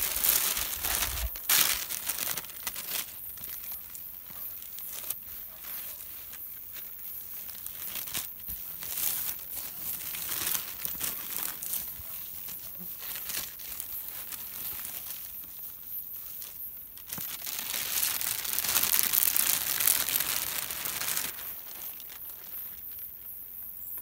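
A large crinkly sheet crackling and rustling as hands press and rub it flat against a wet oil canvas, with a louder stretch of crackling for a few seconds near the end.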